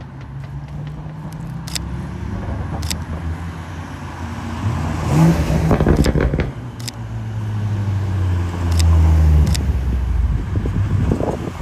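Nissan 350Z's V6 exhaust as the car pulls slowly away from the meet, the revs rising to loud peaks about five seconds in and again around nine seconds. A few short sharp clicks sound over it.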